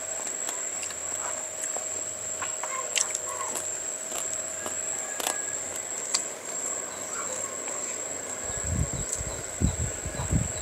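Insects drone steadily at a high pitch, with scattered small clicks and taps from eating by hand off plates. A few low thumps come near the end.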